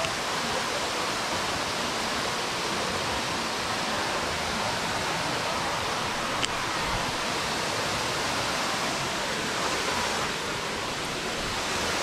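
Steady rush of a waterfall, an even hiss of falling water. A single sharp click about six and a half seconds in.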